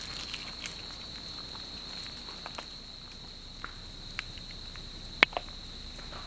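Sparse crackles and pops from a lava flow burning into forest vegetation, with one sharp, loud pop about five seconds in. A steady high-pitched tone sounds under it throughout.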